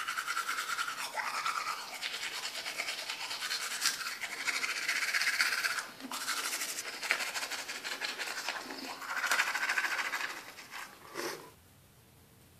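Manual toothbrush scrubbing teeth in quick back-and-forth strokes, with a brief pause about six seconds in; the brushing stops shortly before the end.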